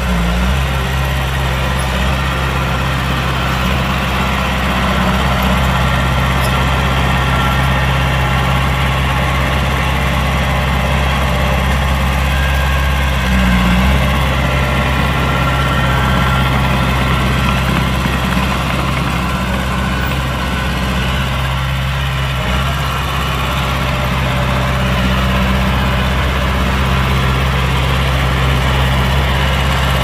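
Heavy diesel engine of earthmoving machinery running steadily near idle, with a brief rise in engine speed a little before halfway.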